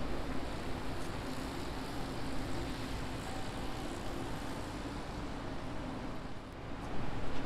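City buses running at a bus terminal: a bus moves off across the plaza, over a steady low hum of engines. The sound grows louder near the end.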